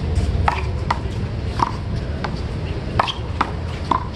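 Small rubber handball slapped by players' hands and smacking off the concrete wall and court during a one-wall handball rally. The sharp slaps come at uneven intervals, about six in four seconds, over a steady low background rumble.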